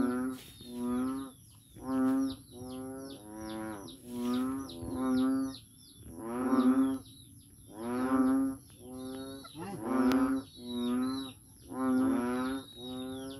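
A frog calling loudly over and over, a low pitched call under a second long repeated about once a second, sometimes two calls close together. Faint bird chirps are heard behind it.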